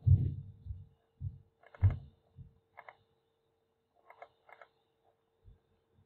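Computer mouse clicking several times, short sharp clicks spread through a few seconds, with a few low soft thumps in the first half and a faint steady hum underneath.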